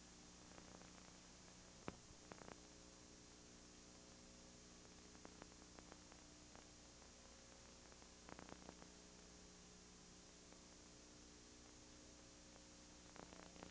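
Near silence: a faint steady hum, with a few soft clicks about two seconds in and again past the middle.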